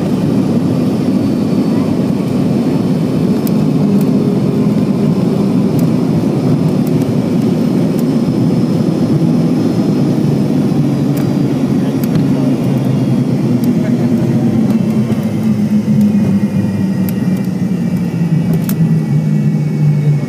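Cabin noise of an MD-80's rear-mounted Pratt & Whitney JT8D jet engines as the airliner taxis after landing: a loud, steady rumble with a low hum that slides lower over the last few seconds.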